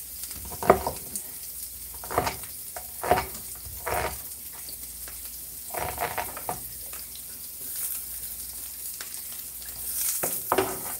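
Chopped onion sizzling in olive oil in a frying pan, a steady hiss, while a cleaver knocks on a wooden cutting board several times as more onion is cut, the sharpest knock about a second in.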